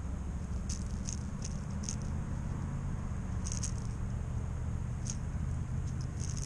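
Fishing reel being cranked slowly during a retrieve, giving scattered light clicks at uneven times, over a low steady rumble of wind on the microphone.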